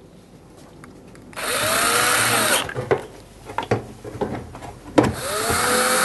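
Power screwdriver driving screws back into a dishwasher door panel, running twice for a second or more each time, its motor whine rising as it spins up. Small clicks and handling knocks come between the two runs.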